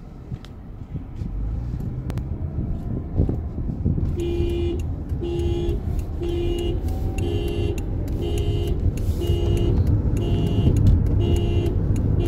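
A 2015 Toyota RAV4's horn sounding in short, evenly spaced beeps, about one a second, starting about four seconds in, over the low rumble of the car being driven.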